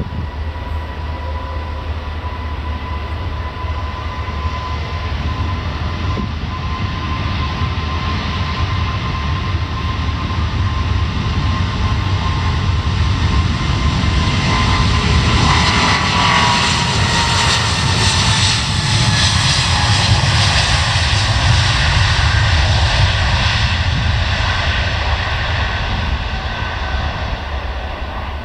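Boeing 777-200ER's two jet engines at takeoff power during the takeoff roll: a steady whine over a deep rumble that grows louder as the airliner passes, the whine dropping in pitch about two-thirds of the way through, then easing off a little as it lifts off.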